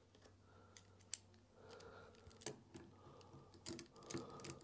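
Near silence broken by faint clicks of a screwdriver and small metal parts being handled. Near the end the clicks come closer together as the driver is turned in the bolts that lock a lead-screw collar.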